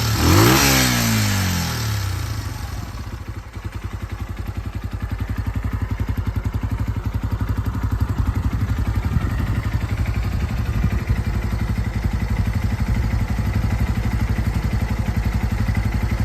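KYMCO KCR125 motorcycle engine revved once, the pitch dropping back within the first two seconds, then idling steadily with an even pulse. It runs without abnormal noises.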